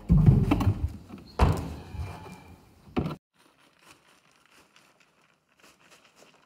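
Metal freeze-branding irons knocking against a plastic cooler as they are set into it: three heavy thunks over about three seconds. The sound then drops abruptly to near silence, with only faint crackles as dry ice is poured in from a paper sack.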